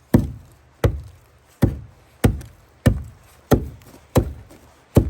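Ice on stairs being chipped with a hand ice pick: eight sharp strikes at a steady pace of about one every 0.7 seconds, each with a short dull thud after it.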